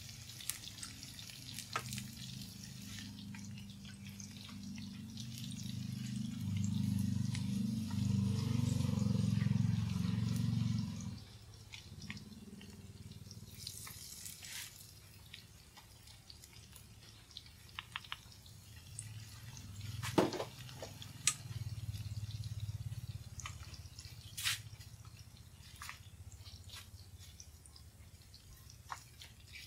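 Battered breadfruit sticks deep-frying in a pan of hot oil: a steady crackling sizzle, with scattered light clicks of chopsticks and a spoon against the pan and batter bowl. A low hum runs underneath for the first ten seconds, loudest near its end, and cuts off suddenly about eleven seconds in; a sharp clack comes about twenty seconds in.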